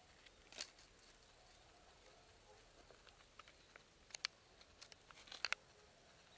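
Near silence with faint scattered clicks and rustles, a few sharper ticks about four seconds in and a close pair around five and a half seconds.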